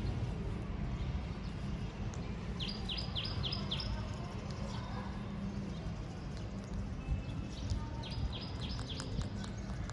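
A bird chirping in two quick runs of about five short, falling chirps each, one a few seconds in and one near the end, over a steady low hum.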